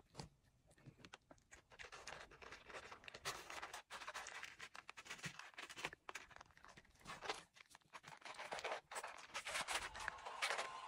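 Cocker spaniel puppy crunching dry kibble, with kibble clicking on the plate: faint, irregular crunches and clicks, growing thicker after about two seconds.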